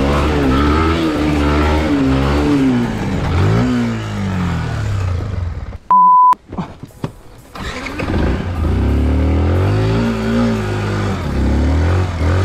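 Motorcycle engine running under way, its revs rising and falling as the throttle opens and closes. About six seconds in a short, loud, steady beep cuts in, followed by a quiet break of a second or so with a few clicks, before the engine is heard again with its revs climbing and dropping.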